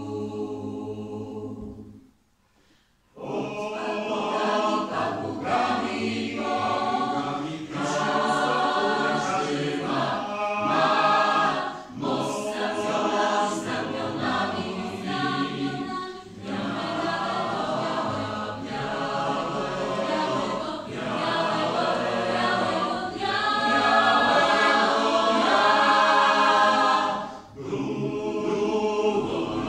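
Mixed chamber choir singing a cappella in several parts. The singing breaks off for about a second near the start, then comes back in.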